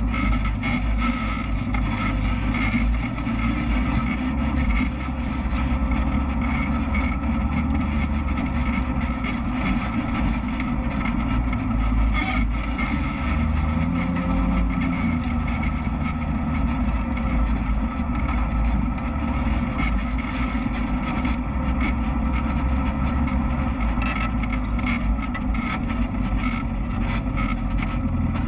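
Side-by-side UTV engine running steadily while driving along a rough dirt trail, with a brief rise and fall in engine pitch about halfway through.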